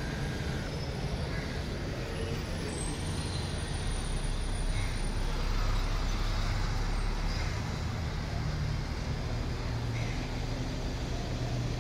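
Street traffic with a city bus engine's low, steady rumble, louder in the middle.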